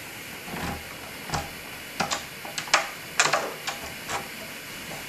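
A door's metal lock and latch clicking and rattling, about ten sharp, irregular clicks as the door is unlocked and opened.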